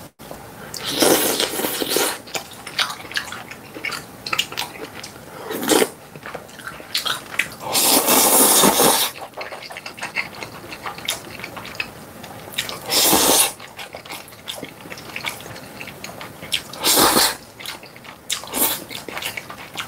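Close-miked slurping of jjajang noodles, about five long slurps with the longest near 8 seconds in, and wet chewing and small clicks in between.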